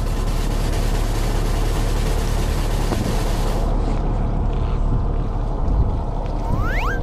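Steady drone of a fishing boat's engine with wind and sea noise, and a short rising swoop near the end.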